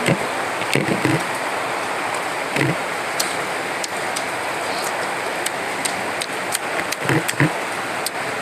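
Mukbang eating sounds: short chewing and lip-smacking clicks as rice is eaten by hand, a few times, over a steady hiss.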